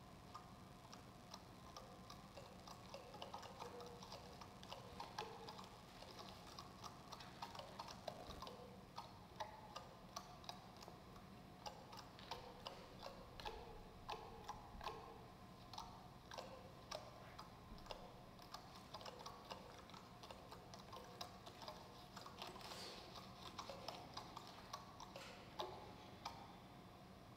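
Quiet, irregular clicks and ticks from plant-material percussion being plucked and tapped by hand, several a second, with a few short, faint pitched notes among them.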